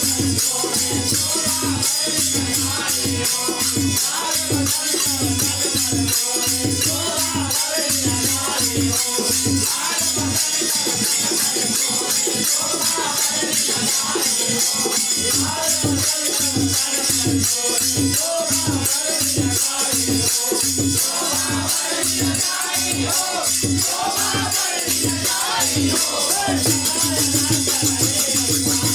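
Faag (Holi folk song) music played live: harmonium and voices over a steady drum beat, with hand-shaken jingles and small cymbals rattling continuously on top.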